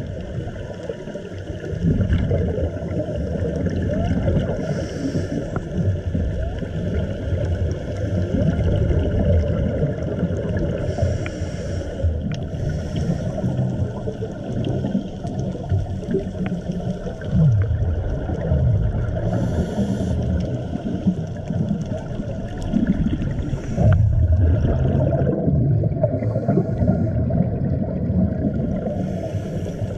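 Muffled underwater sound picked up inside a camera housing on a scuba dive: a steady low rumble of water, with a few short hissing bursts of regulator exhaust bubbles several seconds apart.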